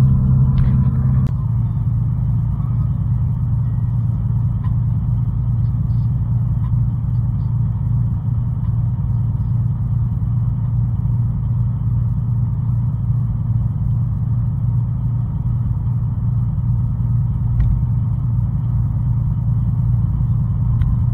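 Steady low road and engine rumble inside a vehicle's cabin while it drives at highway speed. A steady tone over the rumble stops about a second in.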